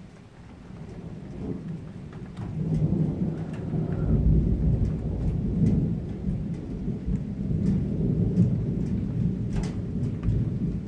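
Thunder rumbling, building over the first couple of seconds and then rolling on low and loud. Scattered raindrops tap throughout.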